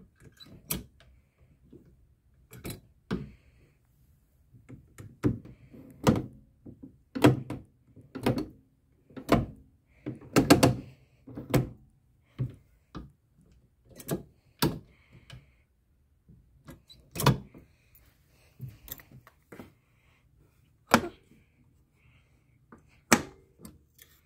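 Train driver's-cab controls worked by hand, giving a string of separate metallic clunks and clicks, about one a second, some loud. The sounds come from a master controller and brake handle being moved through their notches and from cab toggle switches being flipped.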